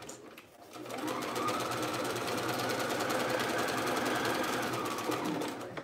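Bernina electric sewing machine stitching a narrow hem: about a second in the motor speeds up to a steady run, needle ticking rapidly, then slows and stops near the end.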